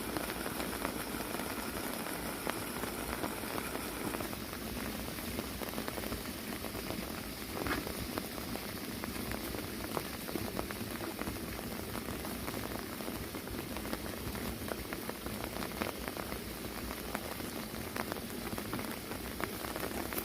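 Water falling from a bamboo spout into a fish pond, splashing steadily, with a brief louder splash about eight seconds in.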